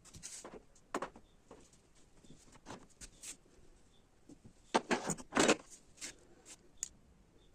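Handling noises: scattered clicks, knocks and rustles, loudest in a cluster about five seconds in, with no motor running.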